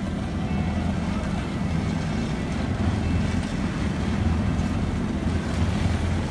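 Heavy diesel engine of road-paving machinery running steadily, a deep even rumble.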